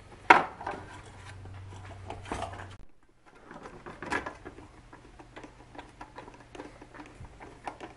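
Hard plastic LED taillight unit and metal taillight bezel being handled and fitted together: scattered clicks, knocks and scraping of plastic on metal, with one sharp knock just after the start being the loudest. A low steady hum runs under the first three seconds.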